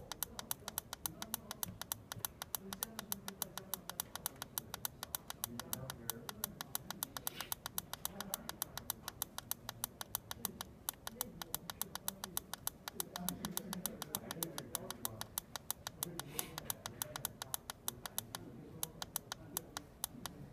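Rapid, evenly spaced clicking from an MBJ20 handheld jaundice meter, several clicks a second, as its reduce button steps the calibration reading down.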